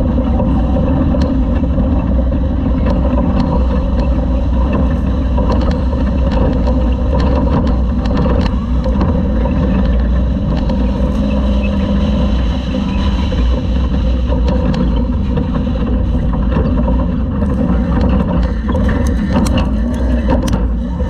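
Class 2000 off-road race truck running hard over dirt, heard from on board: a steady loud engine and drivetrain rumble mixed with wind, and frequent sharp clicks and rattles.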